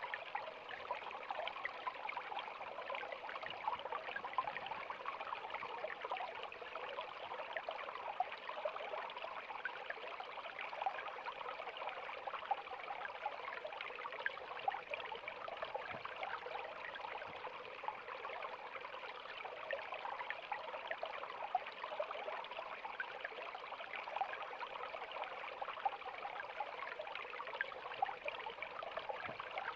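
Mountain stream flowing and trickling steadily over rocks, an even rushing splash with many small bubbling flickers.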